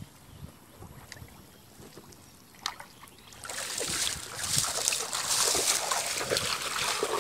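Shallow water splashing and sloshing around a bamboo box fish trap as it is moved with poles. Quiet at first with a few small knocks, then dense splashing starts about three and a half seconds in and keeps going.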